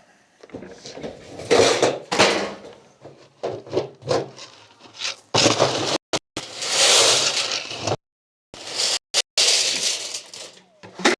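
Loud scraping and clattering in irregular bursts, some lasting a second or more, broken by a few brief dead gaps.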